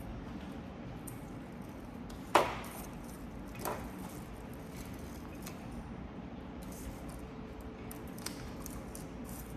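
Small handling sounds of fingers picking and peeling the sticky backing off a sand-art card on a glass-topped table: one sharp tap a little over two seconds in, a softer one about a second later, and a few faint ticks near the end, over steady room noise.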